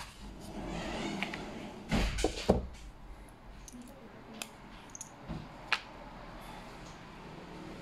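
Hands handling unboxing contents: rustling of a fabric pouch and paper, and a USB cable being picked up and unwound, with a few sharp knocks and clicks, the loudest about two and a half seconds in.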